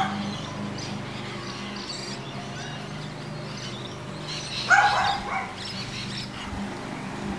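Insects chirping faintly over a steady low hum, with one short high-pitched call about five seconds in.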